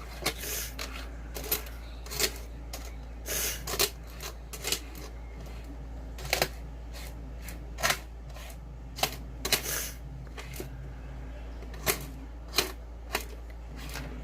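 Coins clinking and clicking against each other as they are counted by hand, in irregular sharp clicks.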